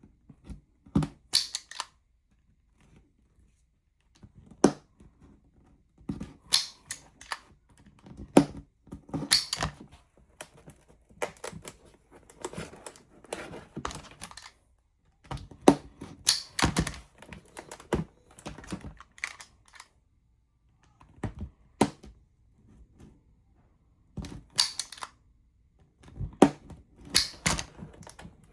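A craft blade cutting slowly around a printed sign's outline: irregular clicks and short scraping strokes in clusters, with pauses as the piece is turned and repositioned.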